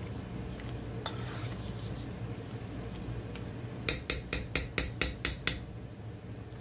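A spoon stirring thick chili in a stainless steel saucepan, with a single click about a second in and then a quick run of about eight sharp clicks of the spoon against the pan about four seconds in, over a low steady hum.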